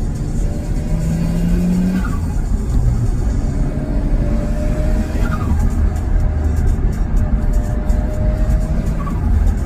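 Nissan Skyline engine revving and lifting off, its stock turbos fluttering on each lift-off, with short falling chirps about two, five and nine seconds in.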